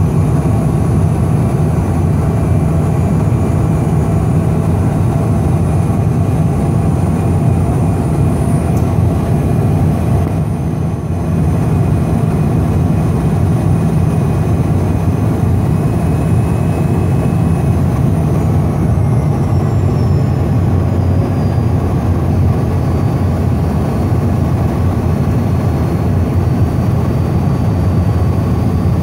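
Cabin noise inside a Cessna Citation XLS business jet on final approach: a steady, loud rumble of airflow and its twin turbofan engines. A faint high whine dips in pitch about eighteen to twenty seconds in.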